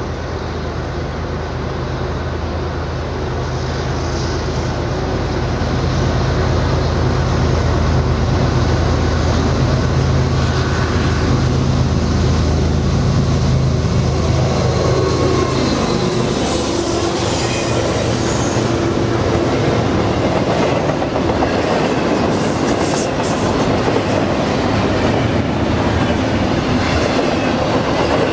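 Diesel locomotives leading a double-stack container train approach with their engines running and growing louder, then pass about fifteen seconds in, the engine drone dropping in pitch as they go by. After that the stack cars roll past, wheels clicking over the rail joints, with faint wheel squeal on the curve.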